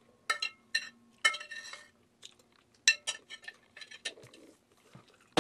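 Metal spoon clinking and scraping against a ceramic plate: a quick, irregular series of sharp clinks with short ringing, and a longer scrape about a second in. A louder knock comes at the very end.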